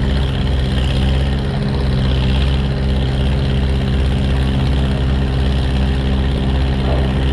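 An engine idling steadily at an even pitch, with no revving.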